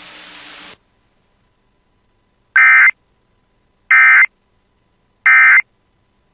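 Emergency Alert System end-of-message signal: three short bursts of digital SAME data tones about 1.3 s apart, marking the end of the warning. Before them, a faint radio hiss cuts off under a second in.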